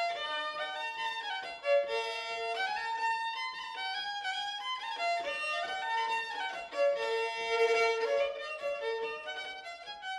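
Background music: a violin playing a melody of quick, changing notes.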